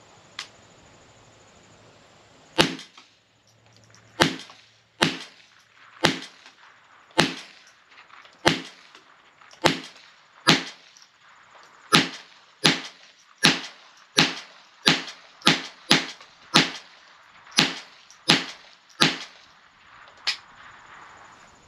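.22-calibre rifle firing about nineteen shots, one at a time: roughly a second apart at first, then faster, every half to three-quarters of a second, until the magazine is empty.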